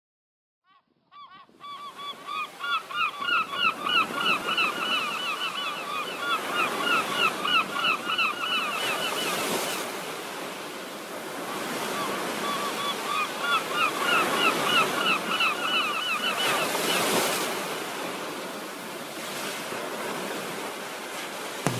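Birds calling in two long runs of short, quickly repeated calls over a steady wash of sea waves, which swells twice.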